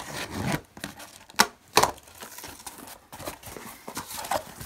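Cardboard shipping box being opened by hand: the flaps are pulled apart with a series of sharp rips and crackles of cardboard and tape, the loudest right at the start and twice more a little under two seconds in.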